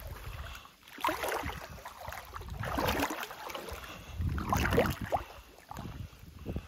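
Water sloshing and lapping close to the microphone, rising and falling in uneven swells, with a low rumble underneath.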